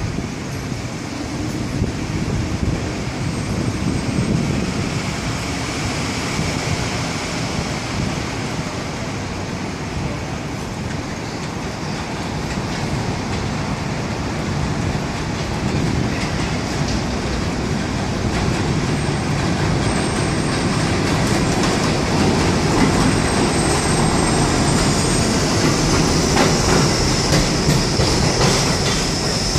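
New York City Subway 6 train approaching and pulling into an elevated station, its steel wheels rumbling and clattering on the rails, with thin high wheel squeals at times. The sound grows louder as the train comes alongside, with a high squeal near the end.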